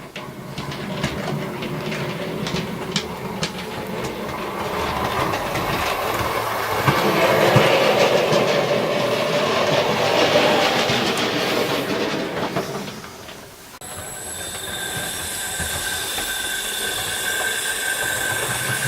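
Model class 56 diesel locomotive running through a newly laid long point on a model railway layout: wheels rumbling on the track with clicks over the rail joints, building toward the middle. It dips about two-thirds in, then goes on with a steady high motor whine.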